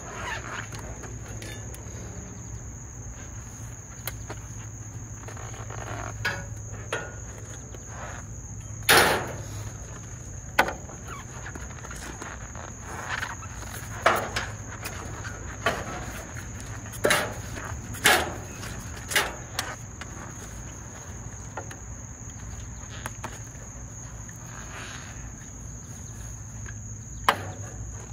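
Scattered sharp knocks and clanks, about eight of them and unevenly spaced, from copper pipe and tools being handled while the insulation is stripped off. Under them runs a steady high-pitched insect drone.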